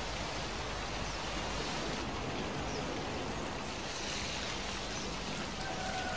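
A jet of garden water spraying, a steady even hiss.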